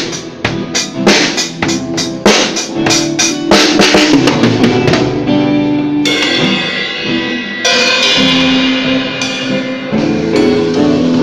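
Acoustic drum kit played up close: quick runs of drum and bass-drum hits for the first five seconds or so, then cymbal crashes ringing out with steady held tones under them through the second half.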